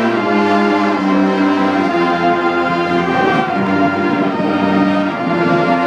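High school marching band playing loud, held brass chords that change twice.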